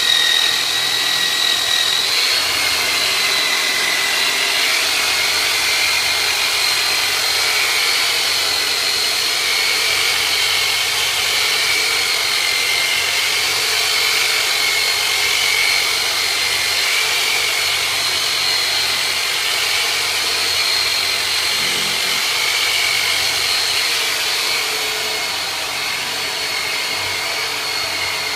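Turbonator handheld massage device running, its motor giving a steady high whine that steps up slightly in pitch about two seconds in and wavers a little as it works over the body.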